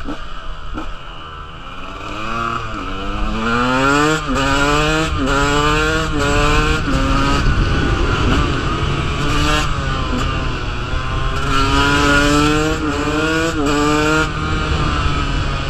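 KTM 125 two-stroke dirt bike engine accelerating hard through the gears, its pitch climbing and then dropping at each quick upshift. It eases off around the middle, then pulls up through the gears again, with wind buffeting the microphone.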